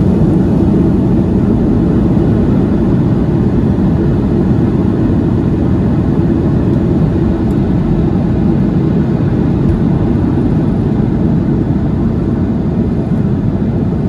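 Cabin noise of a Boeing 737-200 on its takeoff roll into liftoff: its two Pratt & Whitney JT8D-9A low-bypass turbofans at takeoff thrust give a loud, steady, deep roar, heard from a window seat over the wing.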